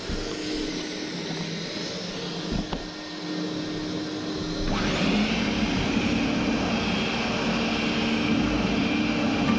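Electric sander running on wooden floorboards. About five seconds in, a motor spins up with a whine that climbs sharply in pitch and then holds high and steady, and the sound gets louder.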